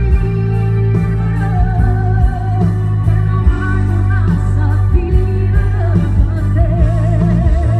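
Woman singing live into a microphone over loud musical accompaniment with a heavy bass, holding long notes with vibrato.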